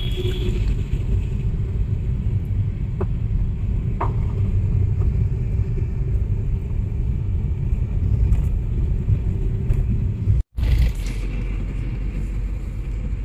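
Steady low rumble of a car driving through a road tunnel, heard from inside the cabin: engine and tyre noise. It breaks off briefly about ten seconds in and goes on as steady road noise.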